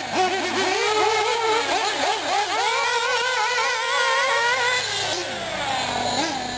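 Small nitro engines of 1/8-scale R/C buggies running on track, the pitch climbing and dipping as they accelerate and back off. A little after five seconds in, the pitch drops away.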